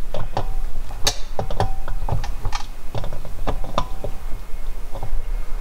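An adjustable wrench clicks and knocks against a plastic ball valve as it is turned onto the Teflon-taped threaded port of a reverse-osmosis storage tank. The sound is an irregular run of small sharp clicks, several a second.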